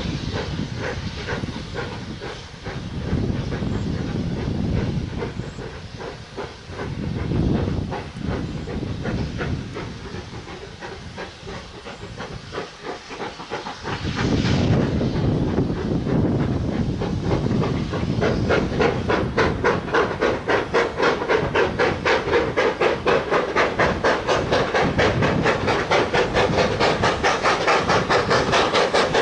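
Steam locomotive approaching under steam, its exhaust beats getting louder about halfway through and settling into a quick, even rhythm of chuffs.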